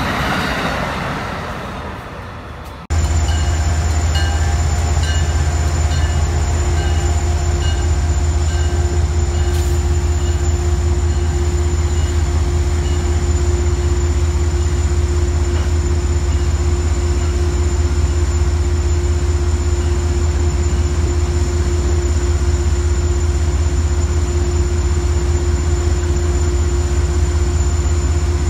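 A passing train fading away, cut off about three seconds in by a string of Amtrak work hopper and gondola cars rolling slowly past: a steady low rumble with a constant hum, and a faint regular ticking for several seconds after the change.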